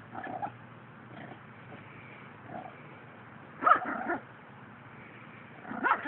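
A puppy barking and yipping at play in short bursts a second or more apart, the loudest a quick run of yaps just past the middle.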